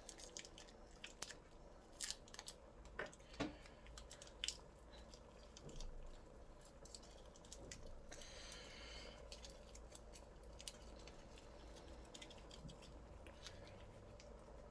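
Faint scattered clicks and crinkles, with a brief rustle about eight seconds in: Maggi stock cubes being unwrapped from their foil wrappers, over a low steady room hum.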